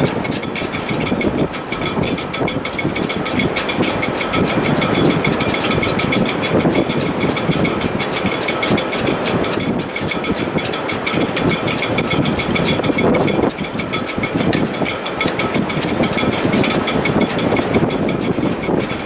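Strong wind through a sailboat's shrouds and stays in heavy weather: a steady roar with a faint high whistling tone from the rigging.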